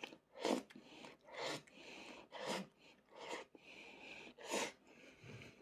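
A person slurping noodles off chopsticks: about five airy slurps roughly a second apart.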